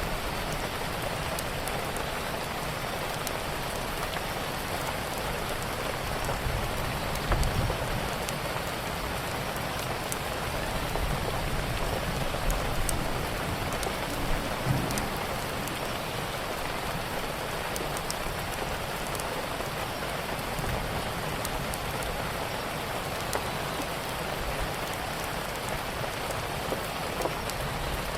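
Steady rain falling, with scattered small sharp crackles of a wood fire and a couple of soft low rumbles about 7 and 15 seconds in.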